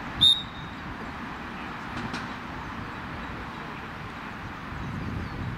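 One short, loud blast of a referee's whistle signalling that the penalty may be taken, then a steady background hiss.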